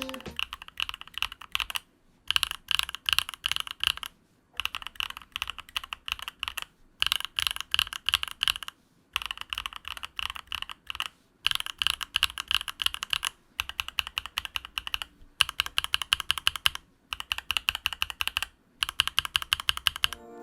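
Typing on a Nuphy Field75 mechanical keyboard: about ten quick runs of keystrokes, each a second or two long, broken by short pauses.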